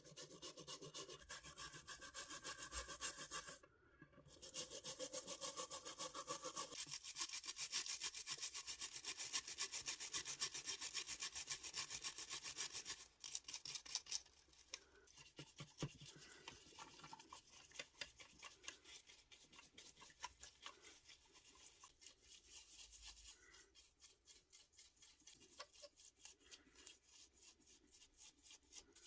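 Rapid back-and-forth hand scrubbing on a small diecast model car part. There is a brief pause about four seconds in, and the strokes are softer and more spaced out over the second half.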